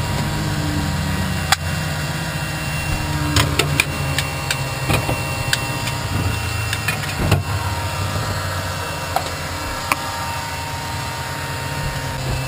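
De Havilland Turbo Otter's turboprop engine and propeller running steadily at low power while the plane taxis, heard from inside the cockpit. Several sharp clicks and knocks from the cabin cut through the drone.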